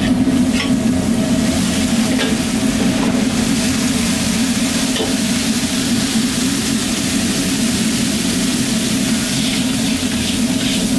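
Chilli paste sizzling in hot oil in a carbon steel wok while a metal ladle stirs and scrapes it around the pan, over a steady low hum.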